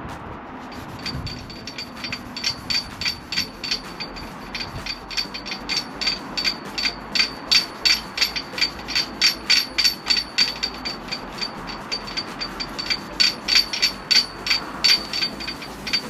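Scotch pad scrubbed back and forth by hand over a painted alloy wheel, keying the surface ready for paint: a rhythmic rasping at about three strokes a second, growing louder after the first few seconds.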